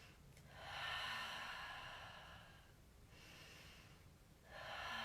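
A person breathing audibly while stretching: one long, slow breath of about two seconds, then a second breath starting near the end.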